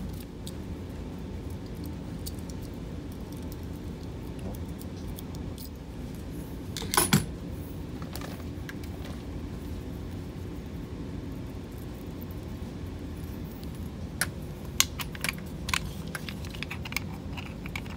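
Metal clinks and rattles from handling a flexible metal conduit fitting and armored conduit: a cluster of clinks about seven seconds in and several more near the end, over a steady low hum.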